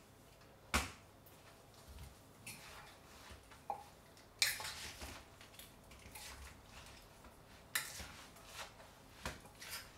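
Spoon and pestle mixing and pressing green papaya salad in a mortar: a handful of scattered knocks against the mortar, with soft, wet rustling of the shredded papaya between them.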